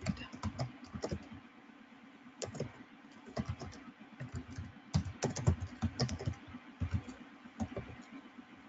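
Typing on a computer keyboard: short runs of keystroke clicks with pauses between them, as a few words are typed.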